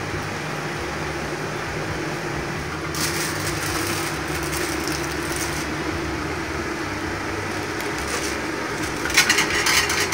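Hot oil in a kadai sizzling and crackling as athirasam dough is deep-fried: bursts of crackly hiss about three seconds in and a louder one near the end, over a steady low hum.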